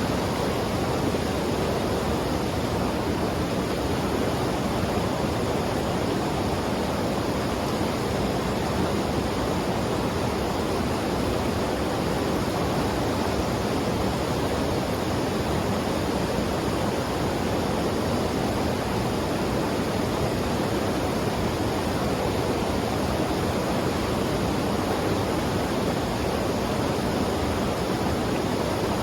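River water rushing steadily, an unbroken even roar with no distinct events.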